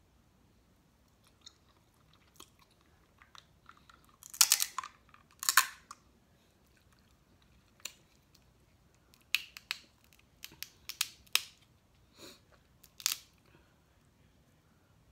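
Close-miked eating sounds: chewing with sharp cracks and snaps as snow crab leg shells are broken open. The two loudest crackling bursts come about four and a half and five and a half seconds in, with a run of shorter snaps from about nine to thirteen seconds.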